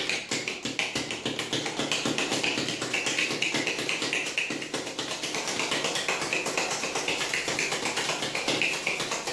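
Ice rattling and knocking inside a stainless-steel cocktail shaker shaken hard, a fast even rhythm of about six knocks a second. The drink is being shaken over ice to chill it.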